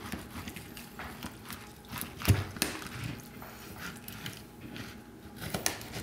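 Knife cutting through a grilled chicken's charred skin and meat on a wooden cutting board, separating a leg quarter. Scattered small clicks and ticks, with one louder knock about two seconds in.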